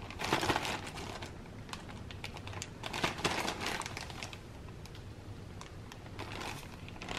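Plastic bags and an empty plastic water bottle crinkling and crackling as they are handled: soft, irregular small clicks and rustles.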